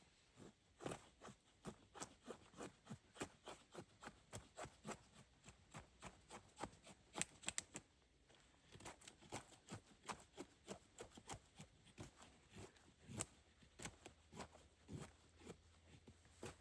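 A quick, even run of sharp, light taps or cuts, about three a second, with a short pause about eight seconds in.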